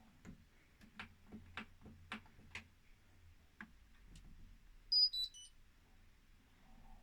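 Hotpoint washing machine controls being operated: a string of irregular clicks, then about five seconds in a quick falling run of high electronic beeps from the control panel.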